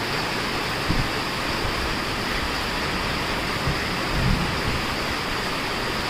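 Steady rushing noise throughout, with a few soft low thumps about a second in and again around four seconds in.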